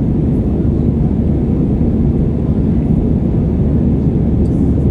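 Steady low roar inside the cabin of an Airbus A320-214 in flight: its CFM56 turbofan engines and the rushing airflow, heard from a window seat by the wing.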